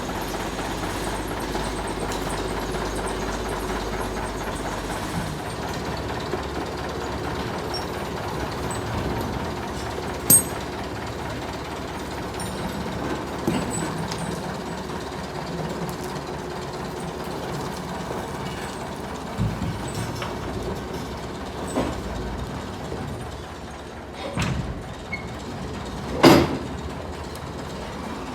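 Tractor engine running steadily, with a few sharp metallic knocks and clanks from the work on the loader.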